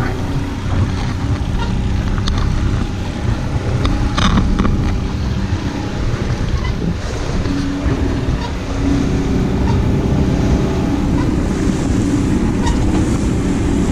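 Twin outboard motors of a ski boat running steadily at trolling speed, with water rushing past the hull and wind on the microphone. A few short knocks sound through it.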